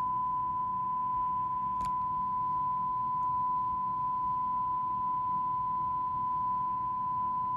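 A steady, unbroken single-pitch beep tone played through a television's speaker, with a faint click about two seconds in.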